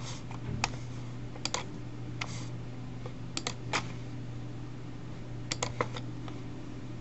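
Sparse clicking at a computer: about eight sharp clicks, some in quick pairs, spread unevenly, over a steady low hum.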